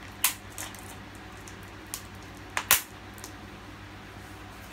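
Plastic packaging of a film disc case being handled and picked at: a few short, sharp plastic clicks and crackles, the loudest pair coming close together a little past halfway, over a steady low hum.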